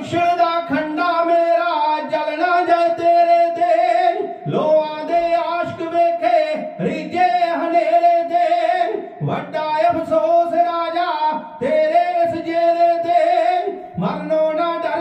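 Kavishri singers singing a Punjabi ballad in long held notes, in phrases of two to three seconds broken by short pauses for breath.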